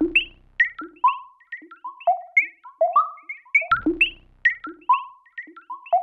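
Background music: a quick melody of short, fast-fading keyboard notes, with a low note under it at the start and again about four seconds in.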